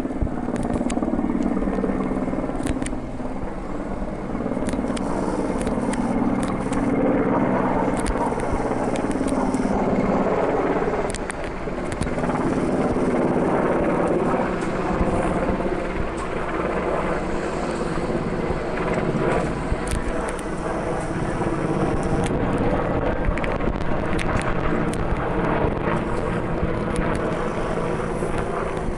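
Mil Mi-17 helicopter flying overhead: the steady, rhythmic chop of its main rotor over the drone of its twin turboshaft engines.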